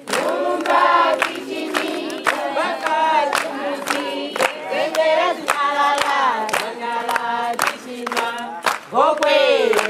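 A group of children and adults singing together, with steady handclaps keeping time.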